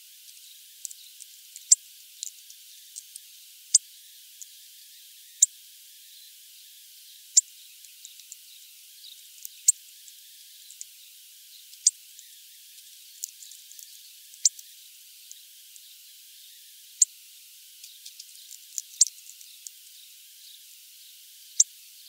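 A hawfinch feeding on sunflower seeds, its heavy bill cracking the shells: sharp, short clicks at irregular intervals, a few every couple of seconds, over a steady hiss.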